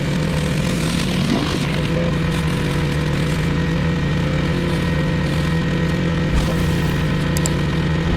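Pressure washer engine running at a steady speed.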